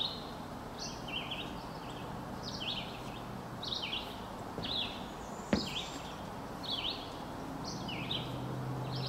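A songbird singing a series of short, quick downward chirps, about one a second, over steady outdoor background hiss. A single sharp click sounds about halfway through.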